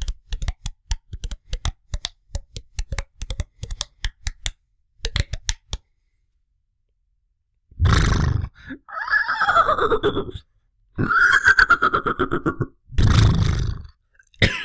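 A man imitating animal noises with his voice. First comes a run of quick mouth clicks lasting several seconds. After a short pause come loud harsh grunts alternating with two long pitched calls, the first sliding down in pitch.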